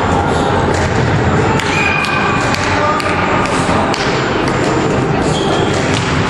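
Busy indoor volleyball hall: balls thumping on the floor and off hands at irregular intervals over the steady hubbub of players talking, with a few short high squeaks. The hall's reverberation runs it all together.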